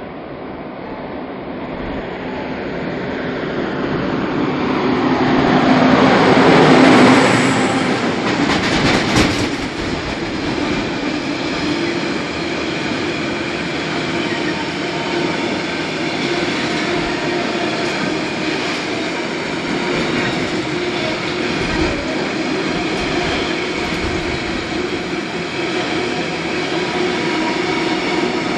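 Freight train approaching and passing: the locomotive grows louder to a peak about seven seconds in, then a long line of railway tank wagons rolls by in a steady rumble with wheel clatter.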